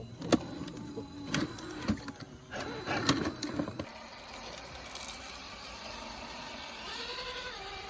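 1/10-scale RC crawler running, its electric motor and gears whining, with several sharp clicks and knocks in the first few seconds before the whine settles into a steadier tone.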